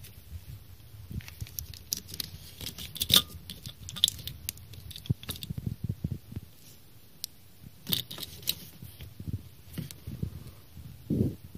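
Close handling noise: irregular rustling, scraping and clicking as a hand moves among the rubber hoses and wiring loom in the engine bay, over a faint low rumble.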